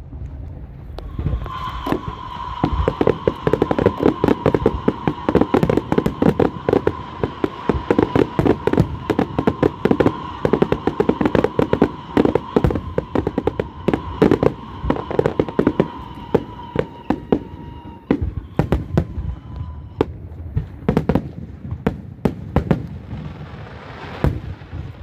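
A dense, rapid run of sharp cracks and pops lasting about sixteen seconds, with a steady high tone running under it that fades out a few seconds before the cracks thin out; scattered single pops follow.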